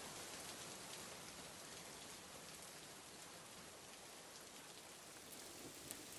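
Faint, steady rain, with a few light drop ticks near the end.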